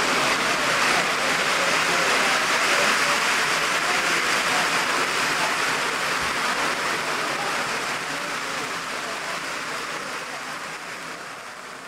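Model train rolling along the layout's track: a steady hissing rattle of wheels and motor that fades over the last few seconds as the train moves away.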